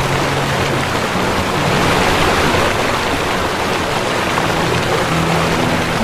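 Waterfall rushing steadily, an even roar of falling water, with soft low music notes held underneath.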